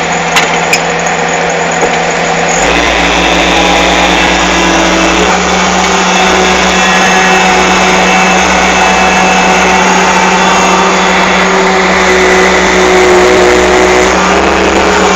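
Excavator's diesel engine running steadily under load, with a whine over it. Two sharp clicks come under a second in, and a deeper hum joins about two and a half seconds in.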